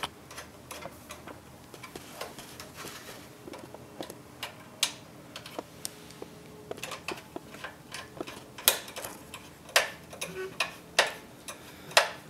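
Screwdriver driving small screws into the sheet-metal bottom cover of an oil heater's control box: irregular light metal clicks and ticks, with a few sharper clicks in the second half.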